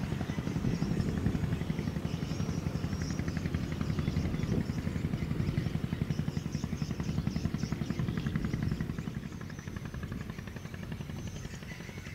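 Low, steady engine rumble of a passing container ship, a fast even throbbing beat that eases off slightly near the end.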